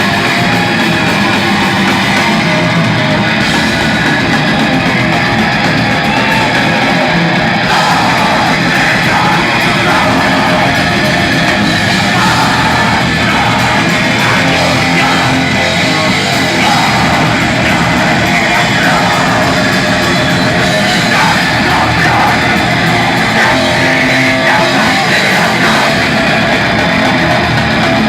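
Live rock band playing loudly with distorted guitar and drums, with shouted vocals over it.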